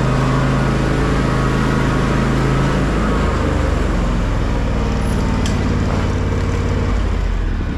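Tractor engine running hard under load as it climbs a hill, its note dropping about three seconds in.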